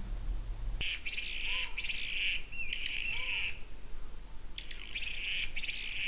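Male Anna's hummingbird singing: a scratchy, buzzy, high-pitched song that starts about a second in, breaks off near the middle, then starts again.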